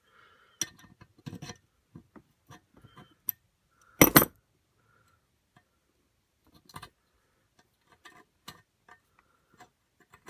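Scattered small metal clicks and clinks of hand tools working on metal while a broken screw is backed out, with one louder clatter about four seconds in.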